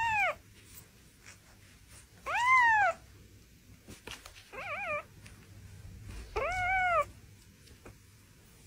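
Young kitten mewing: one call ends just at the start, then three short meows follow about two seconds apart, each rising and then falling in pitch, the middle one wavering.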